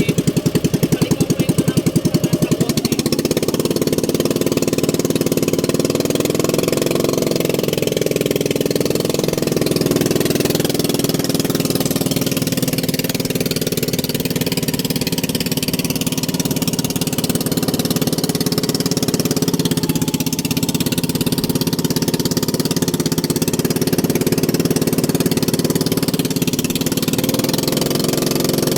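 A small engine running steadily, with a fast pulsing beat in the first few seconds that then evens out.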